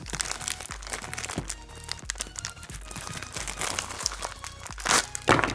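Electronic background music with a steady pulsing bass beat, over crinkling and crackling handling sounds. The loudest crackle comes about five seconds in.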